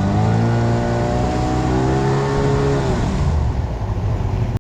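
A small foam boat's motor under way: it speeds up just after the start, holds steady, then slows and fades about three seconds in, under a steady rush of wind and water.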